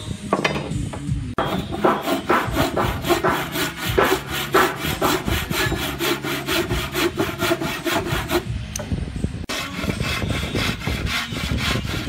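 Hand sawing with a wooden frame saw (bow saw), its thin blade cutting through a wooden strip in quick, even strokes, about four a second. The sawing starts about a second and a half in and stops briefly about nine seconds in before starting again.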